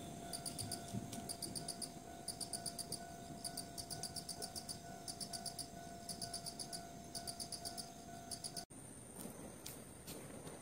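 Crickets chirping at night in short high-pitched trills of several quick pulses, about one trill a second, over a faint steady hum. Near the end the sound cuts off abruptly and the chirping stops, leaving a faint high whine.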